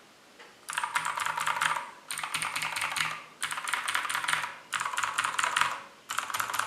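Clicky Outemu Blue switches on a Zebronics Max Pro mechanical keyboard with Cherry-profile keycaps, typed on fast. The keystrokes come in about five quick runs of a second or so each, with short pauses between, after a brief quiet moment at the start.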